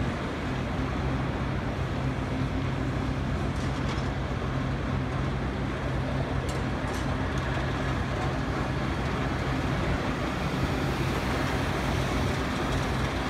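Diesel engines of tracked excavators and a mobile crusher running steadily, a continuous low drone with a steady hum, with a few light knocks about four and seven seconds in.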